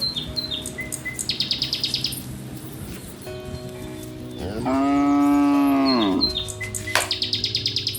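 A cow moos once, a long call that rises in pitch, holds, then falls away, starting about four and a half seconds in. A soft music bed with repeated chirping runs underneath.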